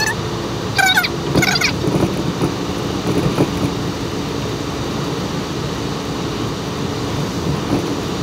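Steady road and engine noise inside a car's cabin while driving on a highway, with a couple of brief high warbling sounds about a second in.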